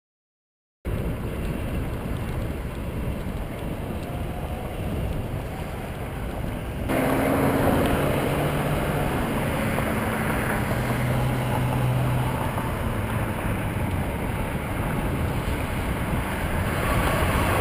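Wind rushing over the microphone of a camera carried on a moving bicycle, mixed with road traffic passing alongside. The noise jumps louder about seven seconds in, and short engine hums from passing vehicles come through after that.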